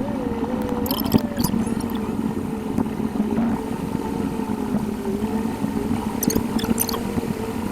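Car driving noise picked up by a dashcam inside the car: steady engine and road noise with a wavering tone, and a few short clicks about a second in and again near the end.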